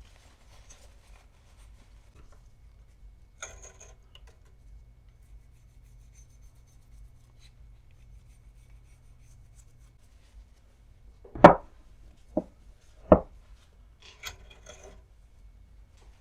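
Small steel parts of a mini drill-press vise handled on a workbench: a brief scrape, then three sharp knocks close together, the first the loudest, followed by more short scraping.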